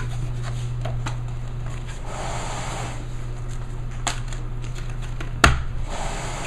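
Foam core board and a circle cutter being handled: scattered light clicks, a rustling scrape about two seconds in, and a sharp knock near the end, over a steady low hum.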